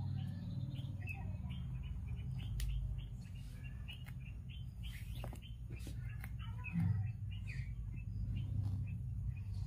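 Small birds chirping over and over in the background above a steady low hum, with a few soft clicks from macrame cord being handled.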